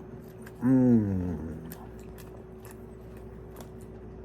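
A man's low, closed-mouth 'mmm' while eating, falling in pitch and lasting under a second, about half a second in. Small mouth clicks of chewing come and go, over a steady faint hum.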